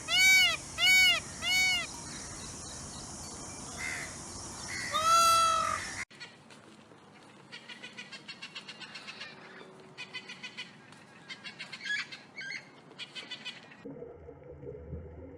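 A cat meowing: three short meows in quick succession, then a longer one about five seconds in. After a sudden cut, quieter rapid chirping and clicking from a bird.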